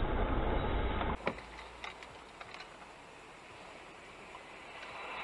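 Car driving, heard from inside the cabin: a loud, steady road and engine rumble for about the first second, then a sudden change to a much quieter cabin hum with a few faint ticks that slowly grows louder.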